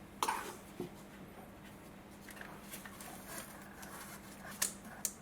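Light clicks and rustles of plastic ignition coil packs being handled and set down, with two sharper clicks near the end, over a faint steady hum.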